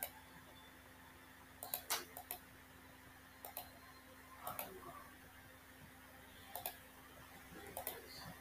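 Computer mouse clicking: short, sharp single clicks and quick pairs at irregular intervals, as beams are drawn node to node. A faint steady hum runs underneath.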